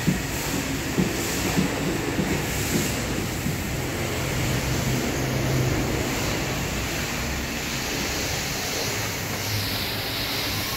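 Steady mechanical rumble and hiss, with a few light knocks in the first few seconds.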